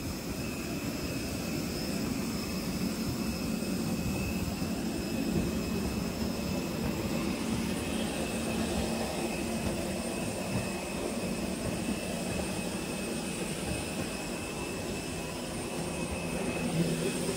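Jet aircraft turbine running steadily: a continuous whine of high tones over a low roar.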